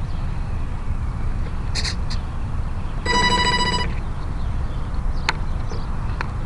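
A single electronic beep lasting under a second, about three seconds in: the electric plane's speed controller sounding its tone with the lipo battery connected. A steady low wind rumble on the microphone and a few light clicks from the battery hatch being handled lie under it.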